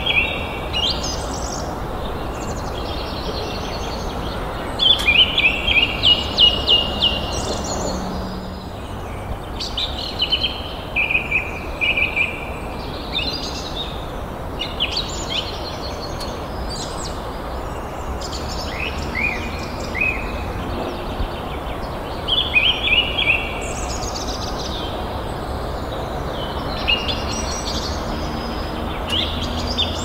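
Songbirds chirping and trilling in short repeated phrases, the song coming and going in bouts, over a steady low background hiss.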